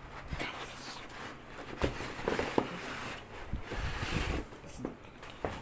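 Handling noises while a laptop is unboxed: irregular rustling of packaging with scattered clicks and knocks, the sharpest about two seconds in and near the end.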